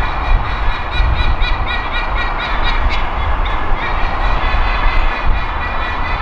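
White-bellied sea eagles giving their honking warning call: a quick run of short goose-like honks, about five a second, in the first half, with a shorter, fainter run after it. Beneath the calls is the steady rumble of heavy expressway traffic.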